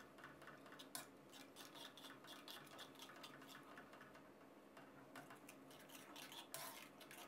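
Faint clicks and scrapes of a metal ladle stirring in a wok, frying curry paste in coconut cream as it comes to the boil; the clearest tap comes about a second in.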